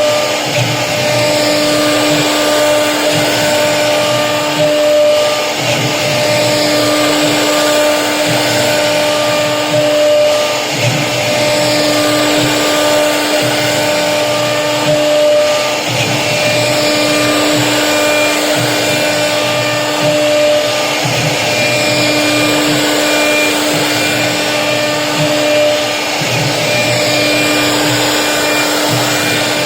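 CNC router spindle running steadily as its bit cuts through HDHMR board, a constant whine over the cutting noise. The whine swells and fades every few seconds as the tool moves along its path.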